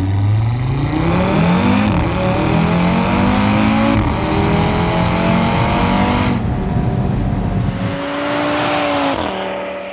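Audi RS3's 2.5-litre five-cylinder engine accelerating hard with its exhaust flaps open, the pitch climbing and dropping back at two quick upshifts. About six seconds in the driver lifts off and the engine settles to a lower, steady note.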